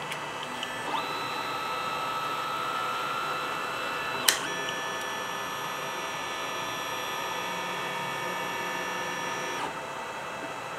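Stepper motors of an EcubMaker ToyDIY 3D printer/laser engraver whining as the axes drive the laser head to home and back to the center of the bed. A slightly rising whine starts about a second in, a sharp click comes about four seconds in, then a steady whine stops shortly before the end.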